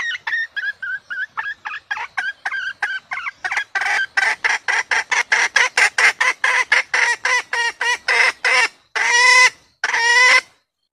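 Red junglefowl hen cackling: a run of short clucks, about four a second at first, then louder and quicker. The run ends with two longer, drawn-out calls near the end.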